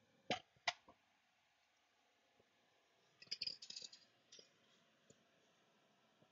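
Faint clicks and light rattling from small hard objects being handled. Two sharp clicks come near the start, then a short cluster of clicks and rattles a little past the middle, then a few faint ticks.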